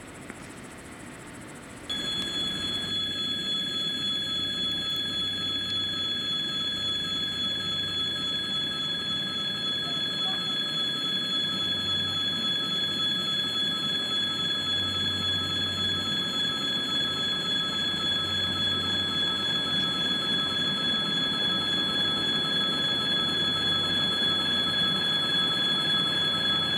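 Freight train of tank cars hauled by a 2ES4K electric locomotive approaching: a steady high-pitched whine of several held tones over a low rumble, slowly growing louder. It cuts in suddenly about two seconds in, after a quieter outdoor background.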